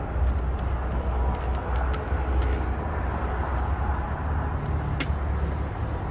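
Steady low outdoor rumble, with a few light clicks of parts being handled under the hood and one sharper click about five seconds in.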